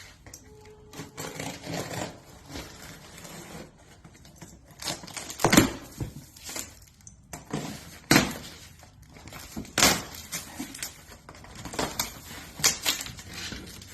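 Objects being handled: irregular knocks and clicks with rustling in between, a few sharper knocks standing out, the loudest about five and a half seconds in.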